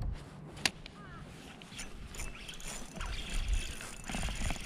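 Handling noise from a spinning rod and reel on a kayak: a sharp click a little over half a second in, then rustling and low rumbling as the rod is lifted and the line taken in hand.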